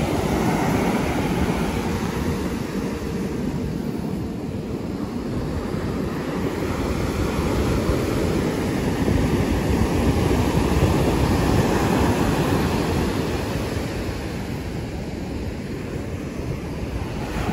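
Ocean surf breaking and washing up the beach, with wind buffeting the microphone; the rush swells and eases over several seconds, loudest midway.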